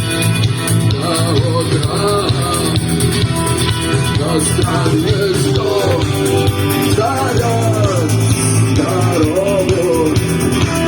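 Rock music playing: a band with a steady low accompaniment and a wavering melodic line over it.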